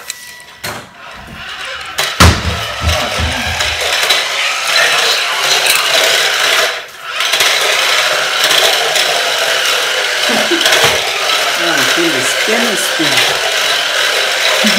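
Battery-powered Smart Steer Lightning McQueen toy car driving on a tile floor: its small electric motor and plastic gears whir steadily, starting about two seconds in and dropping out briefly about halfway through.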